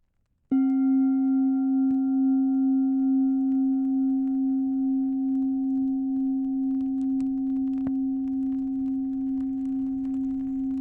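Low-pitched singing bowl struck once, ringing on with a slow waver and a few higher overtones that die away within seconds. Faint campfire crackles pop now and then underneath, more often toward the end.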